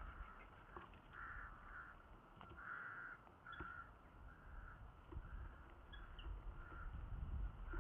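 Eurasian hobby falcon chicks in the nest giving a run of short, harsh calls in irregular groups, over a low rumble that grows louder near the end.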